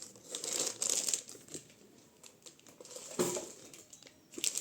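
Plastic packaging crinkling as it is handled, in irregular bursts of crackling with short clicks, busiest in the first second or so, then quieter with a brief burst near the end.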